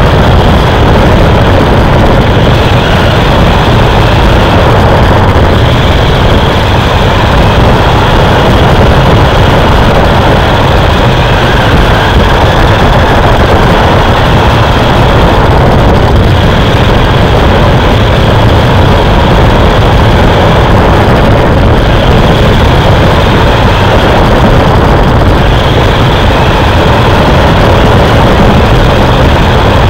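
Racing truck's engine running on track, heard from an onboard camera in the cockpit: a loud, steady drone with little change in pitch.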